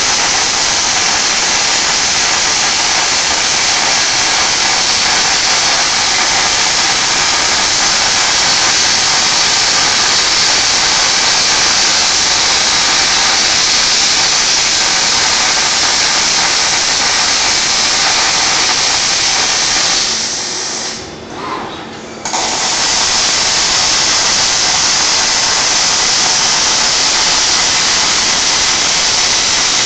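Panasonic robotic MIG welding torch arc-welding a steel beam, a steady loud hissing crackle of the arc and spatter. The arc drops away for about two seconds about two-thirds of the way through, then starts again.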